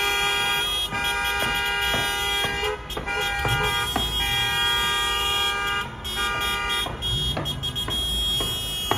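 Several car horns sounding together in long, overlapping blasts, with a brief break about six seconds in, over the bangs and crackle of aerial fireworks.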